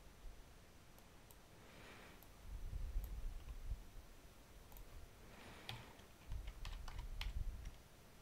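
Faint computer-keyboard clicking, scattered at first, then a quicker run of sharper clicks in the second half, over low soft bumps.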